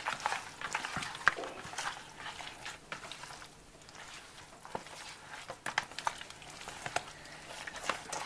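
A hand squelching and turning raw chicken pieces in an oily spice marinade in a plastic bowl, with irregular wet smacks and clicks.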